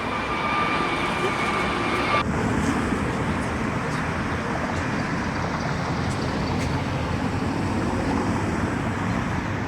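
Jet airliner engine noise, a steady rumble, with a high whine over it that stops abruptly about two seconds in.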